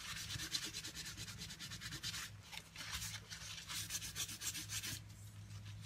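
Paper towel rubbed briskly back and forth over inked card stock, a faint scratchy rubbing in quick repeated strokes, wiping the ink off the top so the colours underneath show through.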